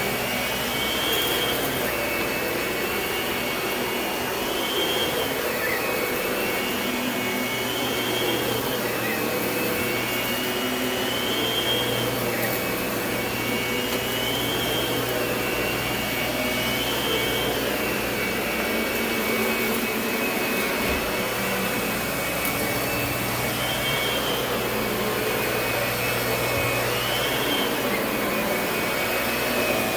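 Lindhaus vacuum cleaner running steadily, its high whine rising and falling again and again every couple of seconds.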